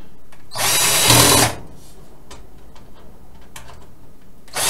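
Cordless drill-driver running for about a second as it drives a screw into the steel drive cage of a PC case. It starts again briefly near the end.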